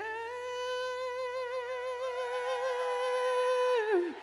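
A male singer holds one long high note with a slight vibrato, then lets it fall away at the very end.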